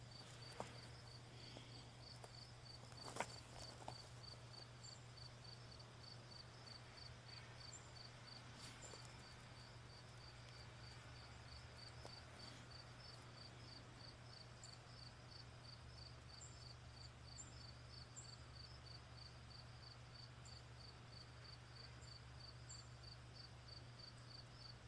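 Near silence with a faint cricket chirping evenly, about two to three chirps a second, over a low steady hum. There is a sharp click about three seconds in.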